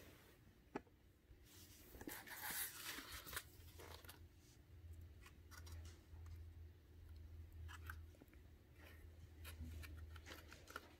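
Faint rustling and small clicks of fingers handling 3D-puzzle models, with a denser crinkly rustle about two seconds in.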